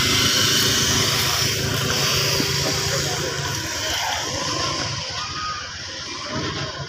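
A motorcycle engine passing close by, loud at first and fading away over the first few seconds, leaving a general hum of street and market background.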